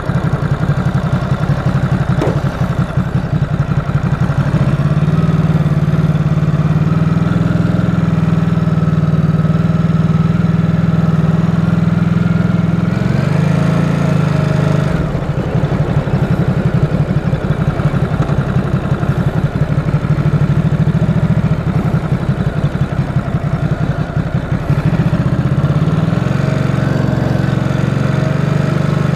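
Stock 2018 Ducati SuperSport S's 937 cc L-twin engine idling as it warms up after a cold start, through the stock exhaust. The engine speed rises briefly and falls back about halfway through, and again near the end.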